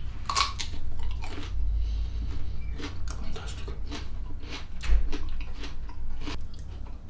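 A man chewing a mouthful of rye bread with fish and cucumber, loud crunching chews about two a second.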